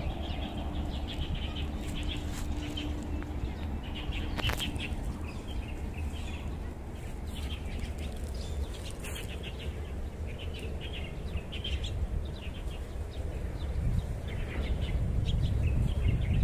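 Small birds chirping repeatedly in short bursts, over a steady low rumble that grows louder near the end.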